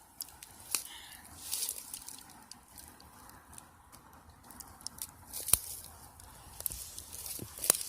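Light rustling with scattered sharp clicks and crackles, the strongest about five and a half seconds in and near the end.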